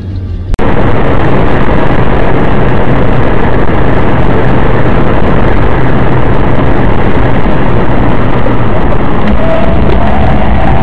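Loud, steady driving noise heard from inside a car at motorway speed: tyre and wind roar with a low engine hum. It starts abruptly about half a second in.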